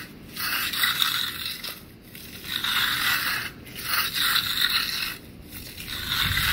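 Steel hand trowels scraping over a freshly poured, still-wet concrete slab during hand finishing. The sound comes as about four long sweeping strokes, each a second or more of hissing scrape, with brief pauses between them.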